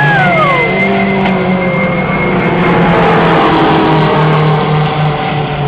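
Skip Barber race cars' engines running hard on the circuit, one engine note falling sharply in the first second as a car goes past or lifts off, then others rising and falling with throttle and gear changes over a steady engine drone.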